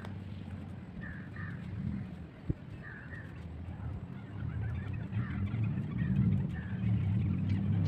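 Short bird calls, mostly in quick pairs, repeating every second or two over a steady low rumble that grows louder in the second half, with one sharp click about two and a half seconds in.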